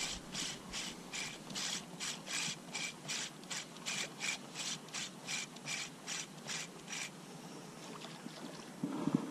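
Spinning reel being cranked to retrieve a lure: a rasping whir with each turn of the handle, about three turns a second, that stops about seven seconds in. A brief low handling noise follows near the end.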